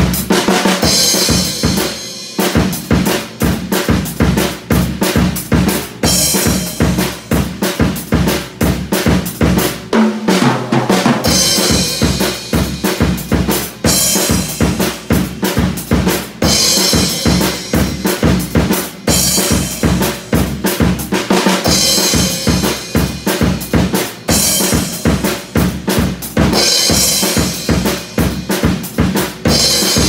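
Tama acoustic drum kit played in a steady pop groove: bass drum and snare keep a dense, even beat, with Paiste cymbal crashes every few seconds. There are two short breaks, about two and ten seconds in.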